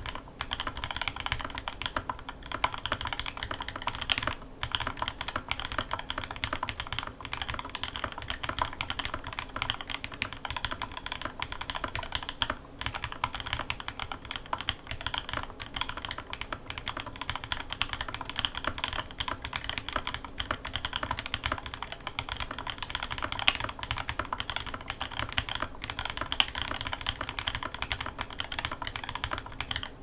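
Continuous typing on a KBDFans 8X rev2 custom tenkeyless mechanical keyboard with lubed, filmed linear switches (Kailh Pro Burgundy stems in Cherry black housings), Zeal stabilizers and a foam-and-felt-dampened build: a dense run of keystroke clacks with a few brief pauses.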